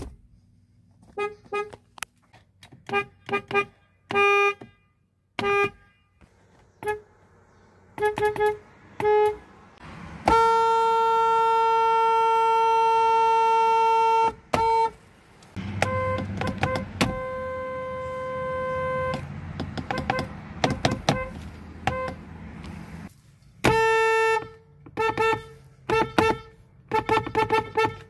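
Weak single-tone car horns of a Ford and a Kia, honked in strings of quick taps. A held blast of about four seconds comes about ten seconds in, then a longer, slightly higher honk over a low rumble, and more quick taps near the end.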